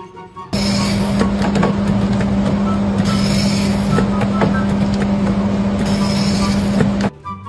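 A machine running with a steady hum and scattered ticks. It starts suddenly about half a second in and cuts off abruptly near the end.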